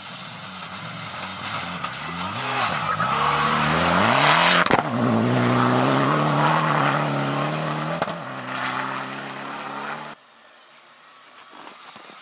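Mitsubishi Lancer Evolution X rally car's turbocharged four-cylinder engine revving hard through gear changes as the car comes flat out along a snowy gravel stage and passes close by. There is one sharp crack about five seconds in, and the engine stays loud as the car pulls away. The sound drops abruptly about ten seconds in.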